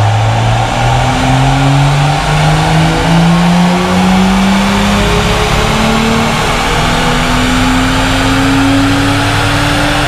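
BMW M135i's turbocharged 3.0-litre straight-six running at full load on a chassis dyno, its revs climbing steadily through one long pull. The exhaust is loud through a catless downpipe.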